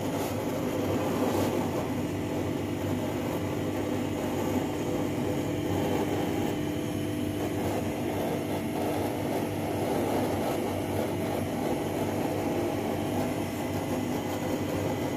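Steady mechanical hum with a constant low tone, running evenly without starting or stopping.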